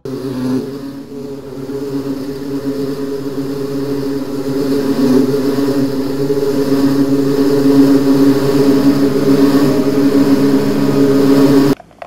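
Buzzing of a large bee swarm, a dense droning hum that grows louder over the first few seconds and cuts off abruptly near the end.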